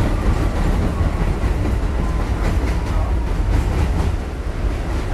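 Inside a New York City Subway 6 train car running on elevated track: a steady low rumble with the wheels clicking over the rails.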